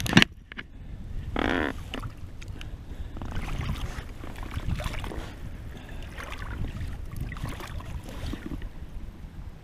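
Wind rumbling on the microphone over water washing around jetty rocks, with a brief rustling burst about a second and a half in.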